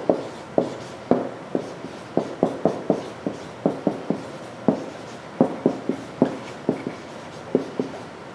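Slow, irregular keyboard typing: sharp key clicks, about two or three a second.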